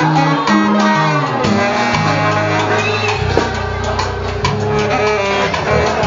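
Background music with a bass line that moves from note to note and layered instrumental notes above it.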